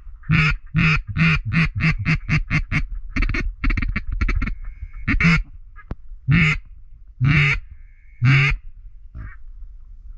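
Hunter's duck call blown close by, sounding hen quacks to bring circling ducks back in. It opens with a fast string of short quacks over the first few seconds, then gives four longer single quacks about a second apart.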